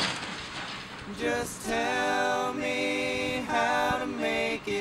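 Background music: a song with singing voices holding long notes one after another.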